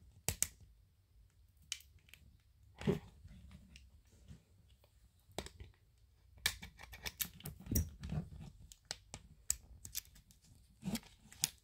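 Fingernails and small scissors working at the plastic covering of a toy capsule: scattered clicks, crinkles and snips, busiest from about six to nine seconds in.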